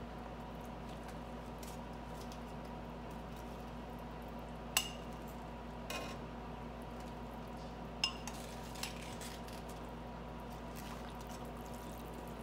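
Metal kitchen tongs clinking against a glass bowl and a stainless steel stockpot as cabbage wedges are lifted into the water: a few sharp clinks about five, six, eight and nine seconds in, over a steady low hum.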